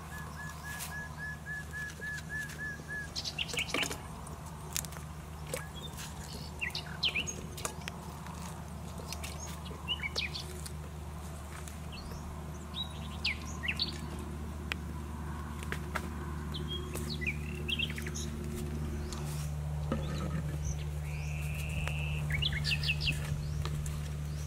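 Wild birds chirping and calling, with a quick run of about ten even notes in the first three seconds and a short trill near the end.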